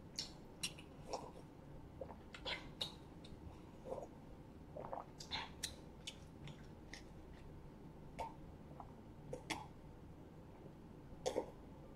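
Faint, irregular gulps and swallows of a person taking a long drink from a plastic cup, with a slightly louder click near the end.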